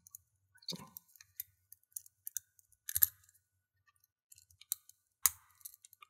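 Steel lock pick working the sliders of a Teng Shao 10-slider padlock under light tension: scattered small metallic clicks and ticks, the loudest around three seconds in and again a little past five seconds.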